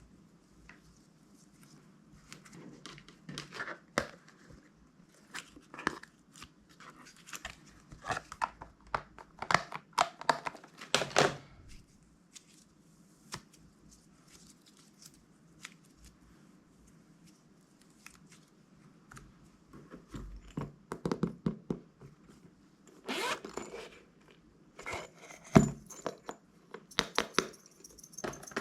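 Slime being squeezed, stretched and poked by hand, giving sticky crackling, clicking and squishing in irregular bursts. There is a quieter pause in the middle.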